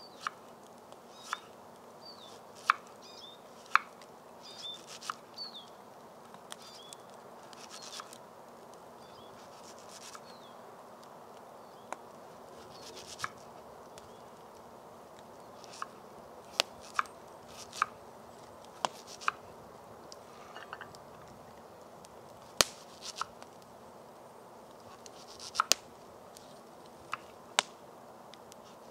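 Knife slicing a red onion on a wooden cutting board: irregularly spaced sharp taps of the blade hitting the board, with a few crisp cutting sounds through the onion between them.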